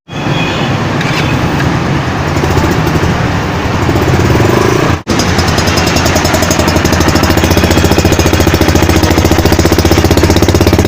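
Yamaha YBR 125G motorcycle's single-cylinder four-stroke engine running, heard as two clips joined by a sudden cut about five seconds in. The second part is a steady, even beat.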